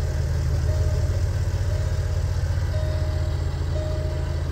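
2012 Jaguar XKR's 5.0-litre supercharged V8 idling with a steady low rumble.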